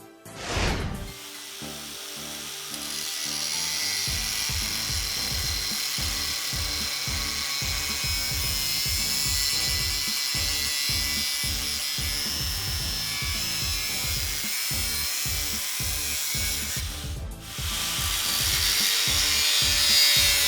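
Electric drill fitted with an arbor adapter, spinning an abrasive metal-cutting disc through square steel tubing: a steady, high grinding hiss. It breaks off briefly about three seconds before the end and starts again.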